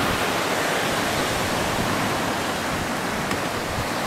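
Steady rushing wash of sea surf breaking on the beach, with some wind on the microphone.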